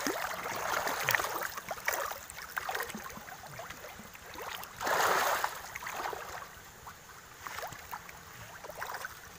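A crowd of fish thrashing and splashing at the surface of a pond, a busy patter of small splashes with one louder splash about five seconds in.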